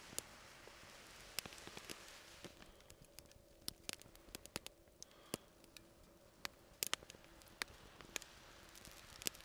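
Small wood fire crackling in a Firebox folding stove: faint, irregular sharp pops and snaps, a few each second at their busiest.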